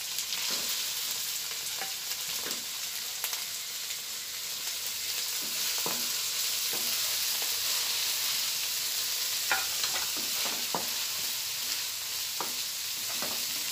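Shredded cabbage sizzling in hot oil in a non-stick wok as a wooden spatula stirs it, with scattered light scrapes and taps of the spatula on the pan over a steady hiss.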